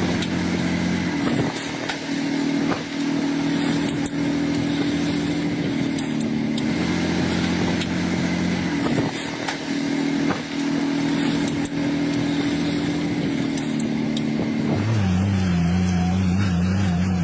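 Diesel engines of heavy earthmoving machinery running steadily, with several sharp clanks. About fifteen seconds in, the engine note drops lower and wavers.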